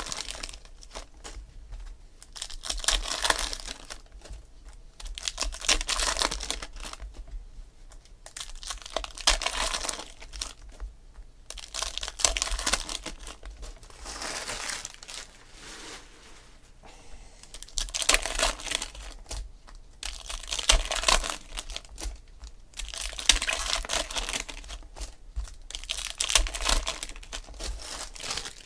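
Foil wrappers of 2016 Panini Select Football card packs crinkling and tearing as the packs are ripped open by hand, in about ten separate bursts every two to three seconds.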